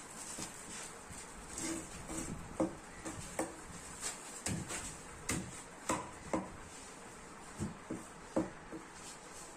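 A large knife chopping and cutting through a seer fish head on a wooden chopping block: about a dozen irregular knocks of the blade striking bone and wood.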